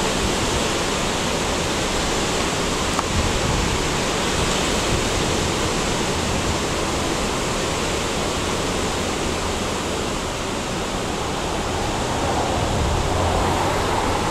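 Ocean surf breaking and washing through the shallows, a continuous, even rush of noise with no letup.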